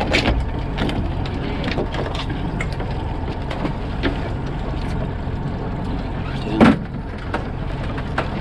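Boat's steady engine-and-water background, with scattered light knocks and one louder clunk about six and a half seconds in as a crab trap is handled on deck.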